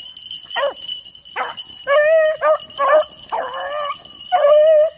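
Beagles baying on a rabbit's scent line: a string of short and longer pitched bays from about two seconds in, coming close together.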